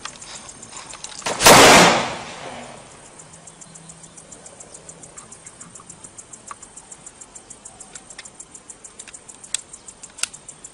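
A Taurus 24/7 pistol firing a single shot about a second and a half in, with no trigger pull: it goes off while being shaken with its manual safety engaged, the sign of the defect that lets this model discharge on its own. After the shot comes faint, rapid ticking.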